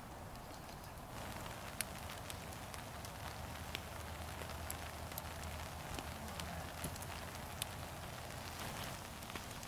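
Outdoor background noise with scattered light crackles and clicks.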